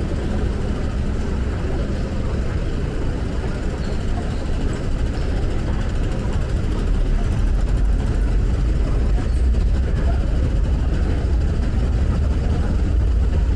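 Steady low rumble of a metro station's background noise, a little louder from about seven seconds in.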